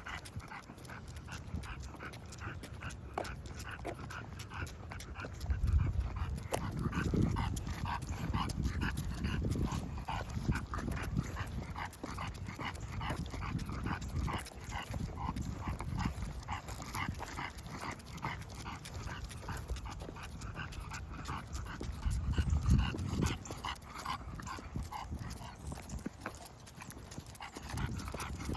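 English bulldog panting heavily in quick, regular breaths. Two stretches of low rumble, about a quarter of the way in and again about three quarters in, are the loudest moments.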